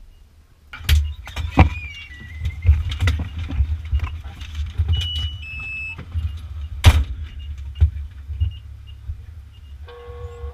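A fire engine's engine rumbles in, with frequent rattles and clicks and two loud bangs, the first about a second in and the second near the middle. Near the end a pitched tone starts up.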